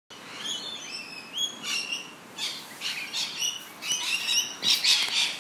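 Birds chirping and calling: a series of short chirps that glide up and down in pitch, coming thicker and louder toward the end.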